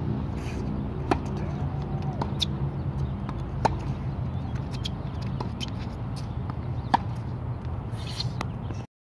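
Tennis balls being struck by rackets and bouncing on a hard court during a baseline rally: sharp pops about every one and a half seconds over a steady low rumble. The sound cuts off suddenly near the end.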